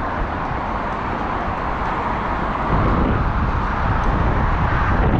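Steady rush of road traffic from the busy A12 dual carriageway below, getting louder a little over halfway in.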